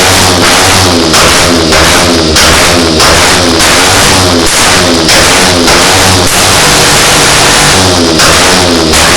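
Yamaha Factor 125 ED motorcycle's single-cylinder four-stroke engine being revved over and over with quick throttle blips, the pitch rising and falling about three times every two seconds. Loud.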